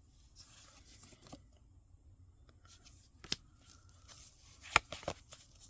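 Quiet handling of Pokémon trading cards and a foil booster-pack wrapper: faint rustling and tearing with a few sharp clicks, the loudest near the end.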